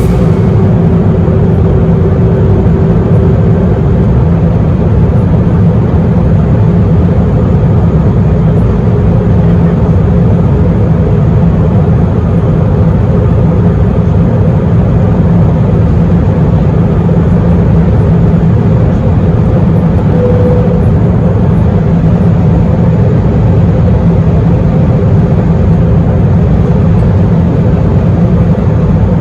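Steady low roar of an Airbus A321's engines and airflow heard inside the passenger cabin in flight.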